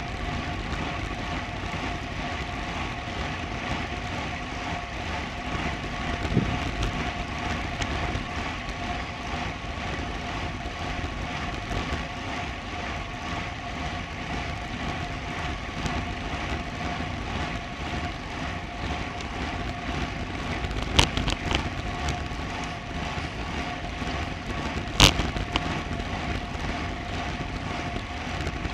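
Steady rush of wind and tyre-on-road noise from a moving road bicycle, picked up by a bike-mounted action camera, with a faint steady whine. Sharp knocks come twice, about two-thirds of the way through and again a few seconds later.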